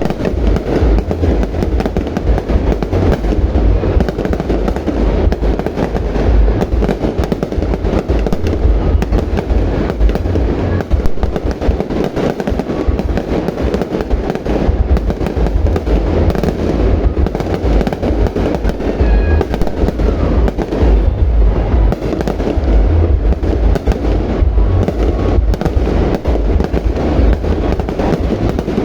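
Fireworks display: a dense, unbroken barrage of bangs and booms over a steady low rumble.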